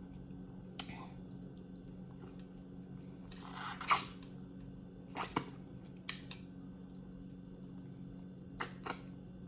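Close-up mouth sounds of someone eating oxtail: scattered short wet smacks and clicks of chewing and pulling meat off the bone, over a steady low hum.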